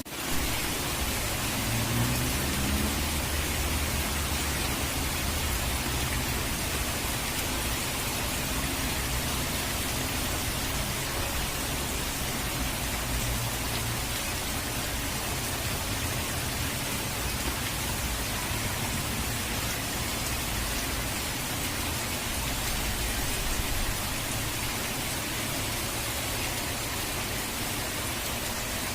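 Steady rush of falling rain and water, an even dense hiss with a low rumble underneath. The level dips briefly right at the start and drops slightly about 24 seconds in.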